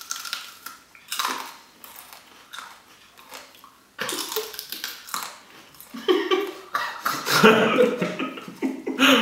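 Crunching bites and chewing of raw red chili peppers, then giggling and laughter from about halfway through.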